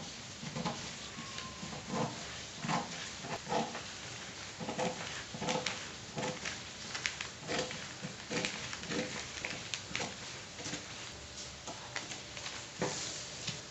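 Scissors cutting through folded newspaper: an irregular run of short snips, about one or two a second, with the paper rustling between them.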